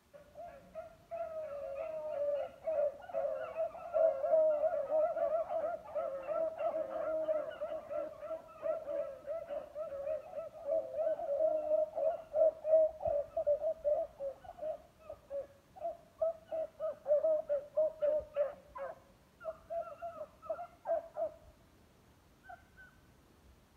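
A pack of beagles baying together as they run a scent trail, a dense overlapping chorus that breaks up into separate cries after about fourteen seconds and stops a couple of seconds before the end.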